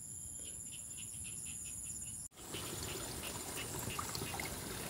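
Crickets chirping in a steady pulsing rhythm, about five chirps a second. About two seconds in, the sound cuts to water trickling along a small irrigation ditch, with faint insect calls still in it.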